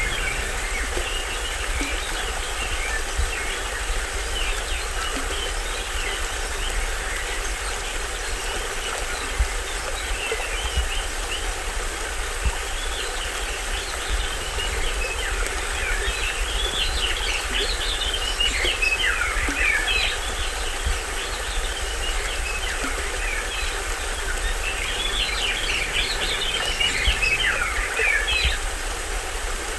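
Small stream waterfall splashing and rushing steadily, with a low rumble, while forest birds chirp in quick rapid runs of notes over it, most busily in a spell about halfway through and again near the end.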